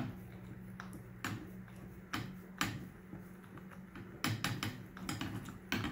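Abu Garcia 6500 Pro Rocket baitcasting reel being cranked to wind braided line onto the spool, giving scattered light clicks and ticks over a steady low hum.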